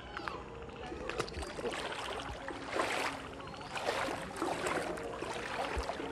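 Feet in flip-flops wading through shallow, moving floodwater, splashing with each step, over the steady rush of the flowing water. The splashes grow louder from about halfway in.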